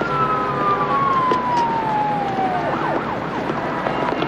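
An emergency-vehicle siren wailing over a low street rumble: one long tone sliding slowly down and stopping just under three seconds in, then a few quick up-and-down sweeps.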